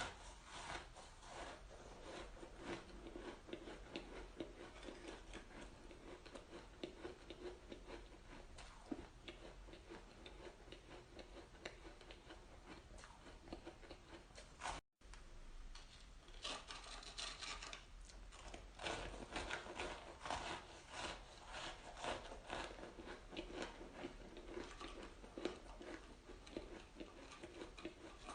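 Close-miked crunching and chewing of purple-flavoured frozen shaved ice: a steady run of small crackling crunches and scrapes, cut off for an instant about halfway through.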